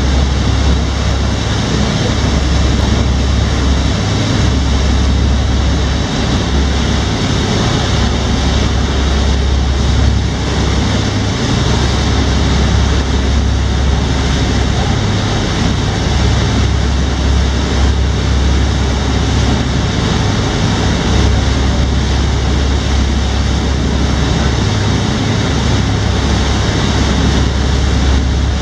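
Passenger tour boat under way: a steady low rumble of its engines under the rushing of the wake water churned up behind it.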